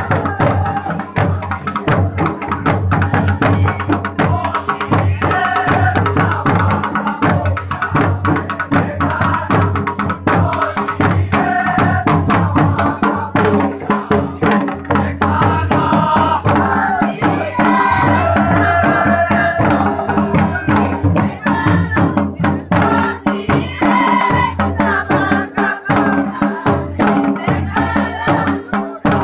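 Jaunsari harul folk song: a group of villagers singing together over rapid, steady drumming.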